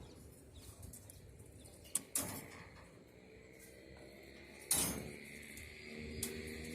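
A few sharp metallic clinks and knocks spaced over the seconds, typical of steel reinforcement rods being handled and struck during roof centring work. A steady low mechanical hum comes in about halfway through and grows toward the end.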